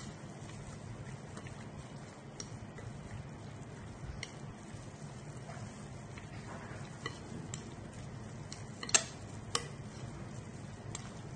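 Gloved hands mixing raw prawns with spices in a glass bowl: scattered light clicks and knocks against the bowl, the loudest about nine seconds in, over a steady low hum.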